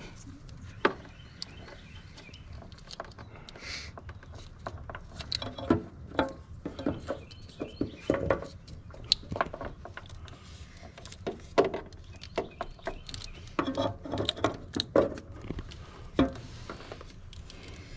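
Hand-handling noise from working wires and a plastic connector through a rubber grommet on a fuel pump hanger: scattered clicks, taps and rustles, busier in the second half.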